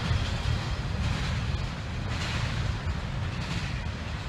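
Double-stack container train rolling away into the distance, a steady low rumble of wheels on rail that fades slowly.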